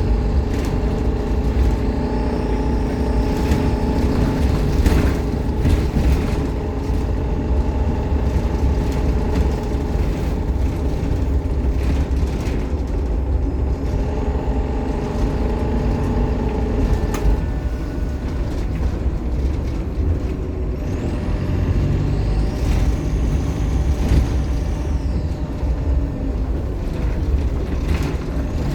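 Optare Solo M880 bus on the move, its diesel engine running with a heavy low rumble and a steady drone, joined by a high turbo whine that rises and falls, most clearly a little over twenty seconds in. Scattered knocks and rattles from the bus body over the road.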